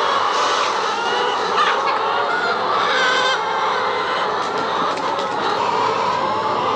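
A flock of laying hens clucking and squawking together, a steady chatter of many overlapping calls.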